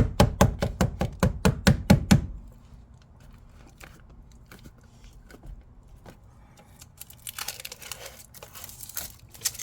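A mallet lightly tapping a car's door sill plate down onto its double-sided tape, a quick even run of about five taps a second that stops about two seconds in. Faint rustling handling noises come near the end.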